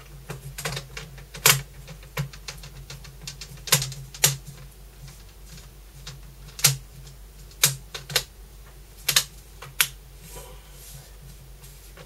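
Plastic screen bezel of a Dell Inspiron 14 3000 series laptop being pressed back onto the lid, its clips snapping into place in a dozen or so irregular sharp clicks.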